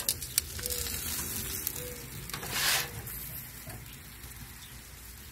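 Bratwursts and dripping fat sizzling on the grate of a hot charcoal grill, with a couple of sharp clicks of metal tongs near the start and a louder burst of hiss about halfway through.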